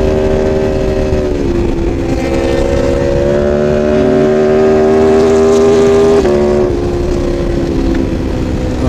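Sport motorcycle engine running hard at speed, heard from the rider's helmet camera with wind rushing past. It holds a steady high drone, sags a little in pitch about a second and a half in, and drops sharply about six seconds in as it shifts up a gear.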